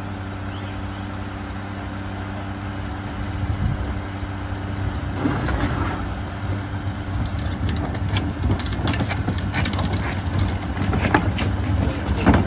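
Mack LR McNeilus rear-loader garbage truck's diesel engine idling steadily. From about five seconds in comes dense clattering and crunching, typical of trash being tipped and compacted in the rear hopper.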